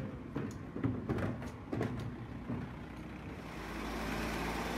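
Garbage truck: several sharp metallic clanks, then the truck's engine running louder as it drives past, starting about three seconds in.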